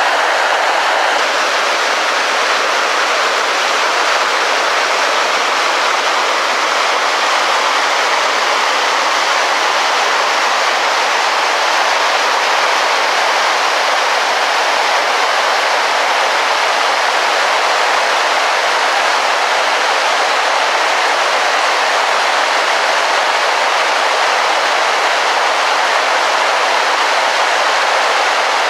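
Water rushing steadily down a small waterfall, cascading and splashing over ice-crusted stones.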